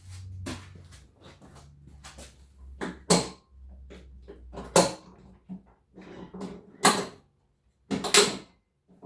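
Hard clunks and clicks of lawn mower parts being handled and fitted together during assembly: four sharp knocks at about 3, 5, 7 and 8 seconds in, with lighter rattling and rustling between them.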